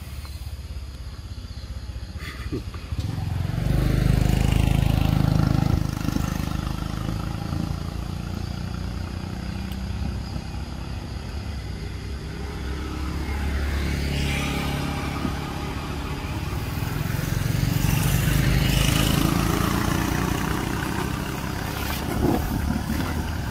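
Motor vehicles passing on a road. One loud pass comes about four seconds in, and another swells and fades away between about fourteen and twenty seconds.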